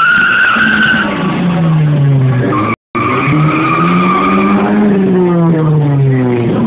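Small hatchback race car engines running hard, their pitch falling, then rising and falling again as a car passes close, with tyres squealing above the engine note. The sound cuts out briefly nearly three seconds in.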